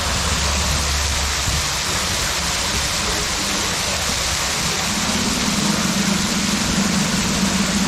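Steady rushing water on a boat ride, with a low mechanical hum joining about five seconds in.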